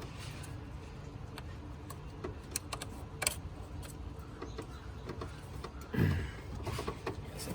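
Scattered light clicks and rattles over a low steady hum, with a short louder thud about six seconds in.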